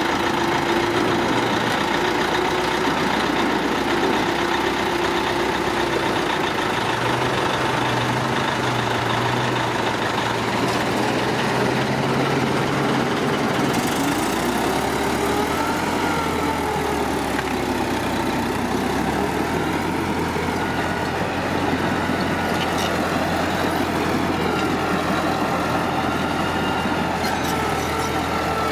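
Heavy diesel engines of earthmoving machinery running steadily, the engine note rising and falling at times. The sound changes about halfway through as a different engine comes to the fore.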